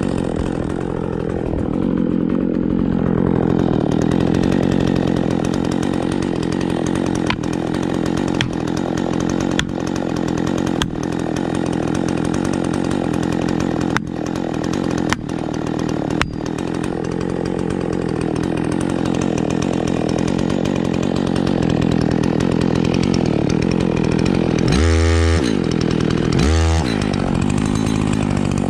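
Chainsaw running under load, cutting steadily, with several sharp clicks partway through. Near the end it is briefly revved up and down twice.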